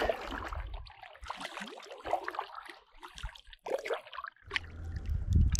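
Kayak paddle strokes: the double-bladed paddle dipping and pulling through the water, with irregular splashes and drips off the blades. A low rumble comes in near the end.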